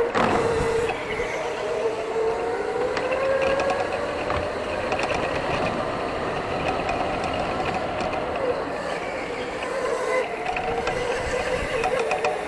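Electric go-kart motors whining during a race, the pitch rising and falling as the karts speed up on the straight and slow for the corners.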